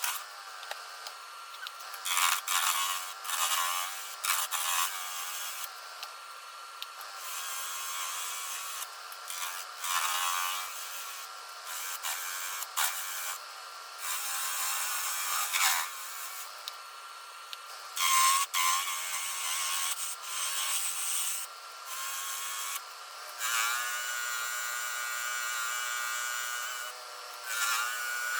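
Woodshop work on wood: short, uneven stretches of power-tool running and of wood being rubbed, sawn or sanded, starting and stopping abruptly.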